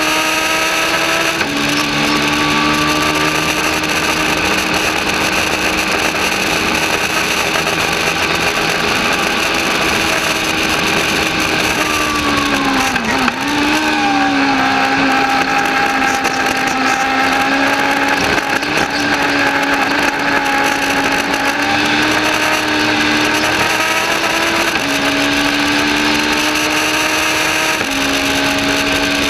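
Legends race car's Yamaha motorcycle engine running hard at high revs, heard from inside the cockpit, holding a fairly steady pitch with small steps up and down. About halfway through, the revs dip briefly and climb back.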